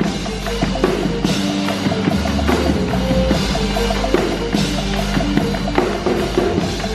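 Live percussion music: a drum kit with bass drum and sharp wood-block-like hits playing a busy, steady beat over held low notes.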